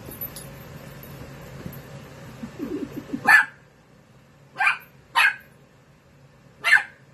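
Dachshund puppy play-barking at a kitten: four short, sharp, high barks, the first about three seconds in and the rest roughly a second apart.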